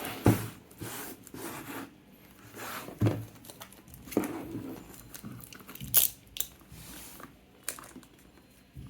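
Product packaging being handled and opened by hand: irregular short bursts of crinkling and tearing, a few sharper ones among them.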